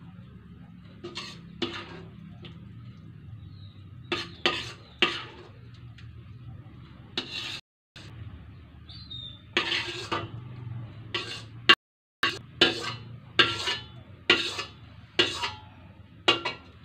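Metal spatula scraping and clinking against a stainless steel wok while scooping out the last of the sauce. The strokes are short and irregular, coming faster in the second half, over a steady low hum.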